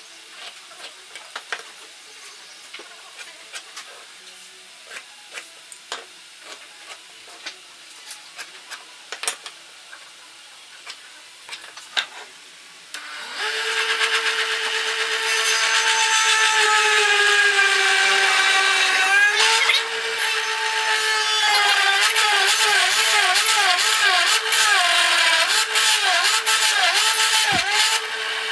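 Light pen scratches and small taps on wood, then, about halfway through, a small benchtop drill press starts with a steady motor whine. Its pitch dips and recovers again and again as the bit is fed into the hardwood strip and the motor loads up.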